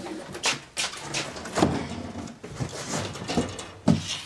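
Household objects and boxes being pulled about and knocked together while rummaging through storage shelves: a run of irregular knocks, scrapes and clatters, the sharpest knock near the end.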